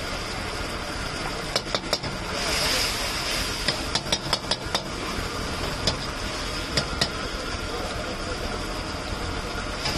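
A metal ladle clinks and scrapes against a steel wok as a cook stirs chilli sauce. The clinks come in short runs about a second and a half in and around four seconds, then singly near six and seven seconds. A steady rumble and hiss runs underneath.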